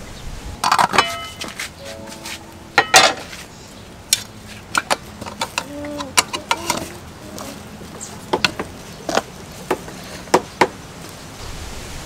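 Kitchen utensils clinking and knocking against metal pots and bowls in scattered, irregular strikes, a few of them ringing briefly; the loudest is a double knock about three seconds in.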